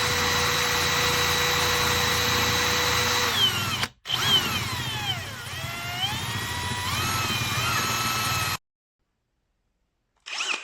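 Bosch UniversalImpact 18V-60 cordless drill motor whining at a steady high speed, then running down. After a short break it starts again, its pitch falling and rising as the trigger speed changes, then cuts off abruptly. A brief burst of the motor follows near the end.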